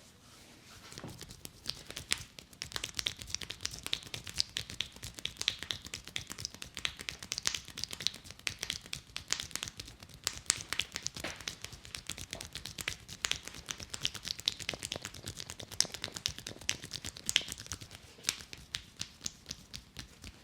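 Barber's hands working fast over a head of hair during a head massage: a dense, uneven run of quick pats, taps and crackly rubbing on the scalp, starting about a second in and stopping just before the end.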